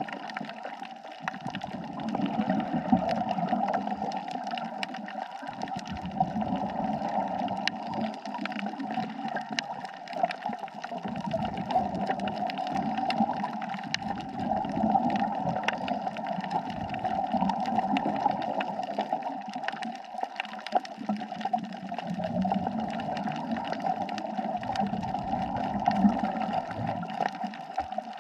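Underwater water noise with gurgling surges of bubbles that come and go every few seconds over a steady hiss, as from a scuba diver's exhaled breath, with fine clicking throughout.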